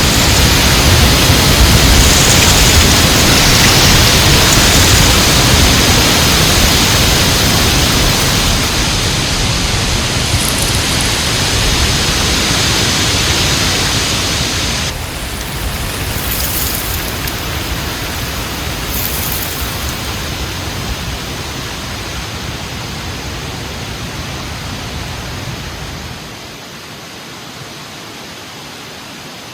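Heavy wind blowing in a steady rushing roar, loudest in the first half, then dropping abruptly in level about halfway through and again near the end.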